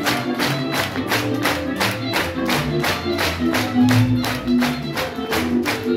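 Small Hungarian folk band of violin, clarinet, cimbalom and double bass playing an instrumental passage of a Hungarian song, with a fast, even beat of about five strokes a second under the melody.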